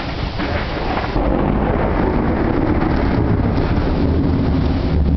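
Thunder from a close lightning strike, a deep rumble that steps up in loudness about a second in and keeps rolling.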